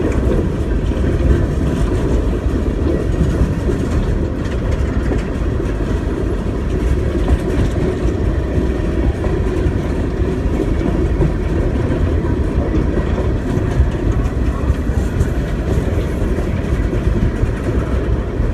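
Freight train cars rolling past at close range, a steady, loud rumble.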